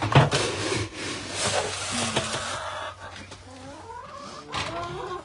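A sharp knock, then about two and a half seconds of loud rustling noise; after it, chickens clucking, with another brief rustle near the end.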